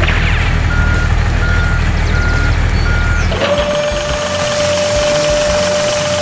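Vehicle reversing alarm beeping four times over a low engine rumble, then a long steady tone that holds on after the rumble drops away.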